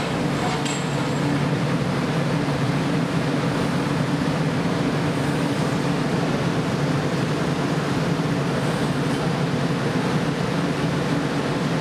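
Steady roar of a glassblowing hot shop's gas-fired furnace and glory-hole burners with their ventilation blowers, a constant low rumble with no breaks.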